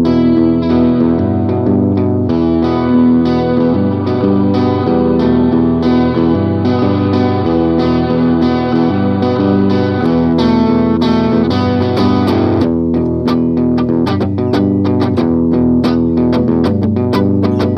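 Guitar music played through effects, with held, ringing notes; about two-thirds of the way through it changes to sharp, quickly repeated plucked notes.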